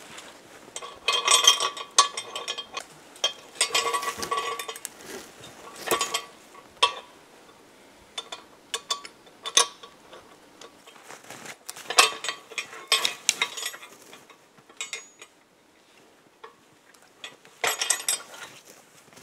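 Metal rigging hardware for a pulley-and-cable log haul (pulley block, shackle and cable) clinking and rattling as it is handled and fastened to a tree trunk. The sound comes in about half a dozen short jangling bursts, with quiet pauses between them.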